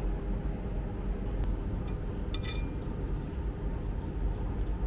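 A single short, ringing clink of tableware about halfway through, over a steady low background hum.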